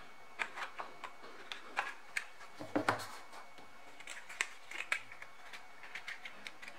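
Small clicks, taps and light knocks of a wallet's packaging being handled: the box lid lifted off and the carbon card clip wallet moved in its tray, with a duller knock about three seconds in.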